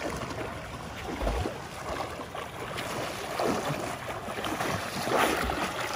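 Sea water washing and splashing around the swimmers, with wind buffeting the microphone; the wash swells and eases a few times.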